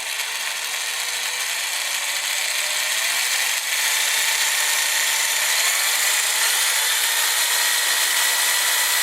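Power drill running steadily, its bit boring into the broken lightweight-alloy shifter toe peg bolt on a motorcycle's gear shift lever. It is cutting the centre hole for a bolt extractor (easy-out), and the alloy is cutting quickly.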